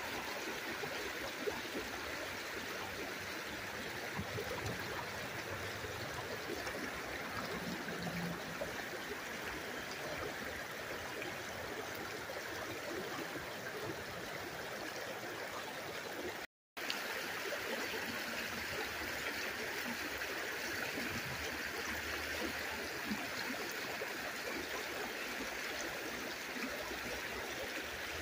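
Shallow river water flowing and babbling steadily over rocks, cutting out for a split second a little past halfway.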